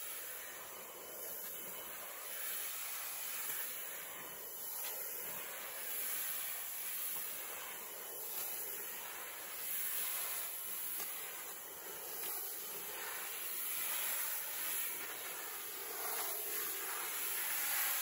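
A steady hissing noise that swells and fades gently every couple of seconds.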